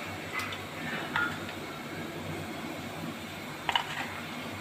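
A few light clicks and clinks of a spice jar and utensils handled at a steel mixing bowl over a steady kitchen background hum, with the sharpest pair of clicks near the end.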